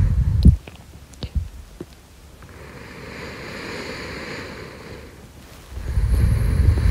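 Slow breathing right at the microphone, as of someone asleep. A breath blowing on the mic as a low rumble stops about half a second in, then come a few faint clicks and a soft drawn-in breath that swells and fades. Another blowing breath rumbles near the end.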